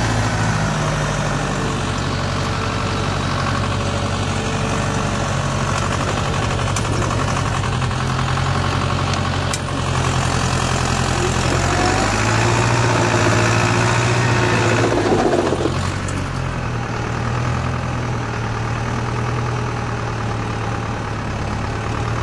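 John Deere tractor engine running steadily under load while towing another tractor. About fifteen seconds in the engine note drops and eases off.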